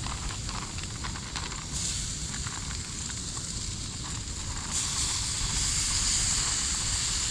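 Breakfast cooking over a wood fire in a hinged fire box stove: a steady hiss with faint crackles, stepping louder about two seconds in and again near five seconds.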